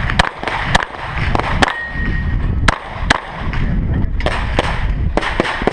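Rapid 9mm Glock pistol shots fired during a timed course of fire, about ten shots at an uneven pace, with short pauses between strings, over a low rumble.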